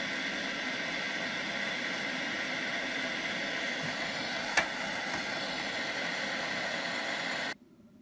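Gas blowtorch flame hissing steadily, with one sharp click about four and a half seconds in; the hiss cuts off suddenly near the end.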